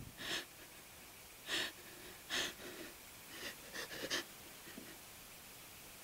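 A woman gasping for breath: about six short, sharp, uneven breaths in the first four seconds.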